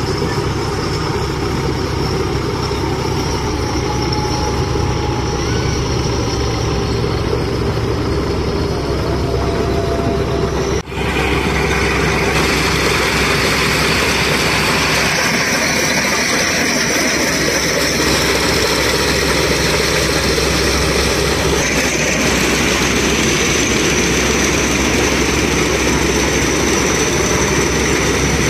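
Preet 949T track-type combine harvester running steadily while cutting rice: engine and threshing machinery droning. About 11 seconds in the sound breaks off for an instant and resumes closer and brighter, with more hiss and a high whine from the machinery.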